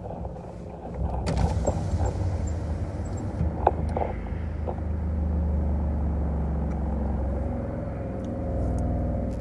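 Car running, heard from inside the cabin as a steady low rumble that grows louder about halfway through, with a few sharp clicks and knocks near the start.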